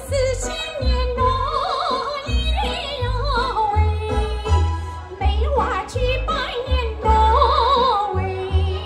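A woman sings a Chinese folk-style song into a microphone, with a high melody and wide vibrato on the held notes. She is backed by a recorded accompaniment with a heavy, regular bass beat.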